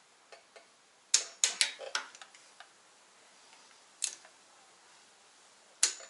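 Sharp metallic clicks of a ratchet torque wrench working the water pump bolts on a bare RB25DET engine block. Two faint ticks come early, then a cluster of louder clicks about a second in, a single click near four seconds and a loud one just before the end.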